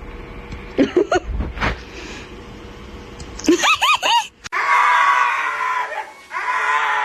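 A dog yelping and screaming: a few short high yelps about a second in, a quick run of high rising-and-falling yelps near four seconds, then two long screams after a sudden break.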